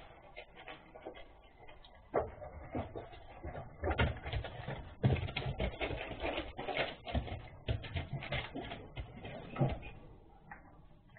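Newspaper rustling and crinkling in irregular bursts under a spaniel moving about on a paper-covered floor, with light taps of paws and claws; it eases off near the end.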